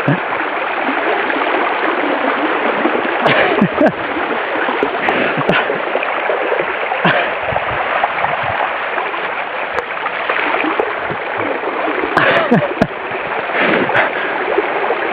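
Floodwater rushing steadily over a submerged road, with a few sharper splashes scattered through it.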